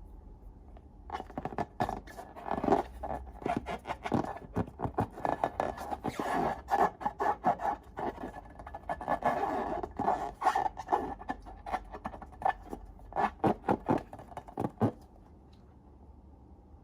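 Slime being squished and worked, giving a fast run of sticky clicks and crackles with denser squelching stretches, stopping about a second before the end.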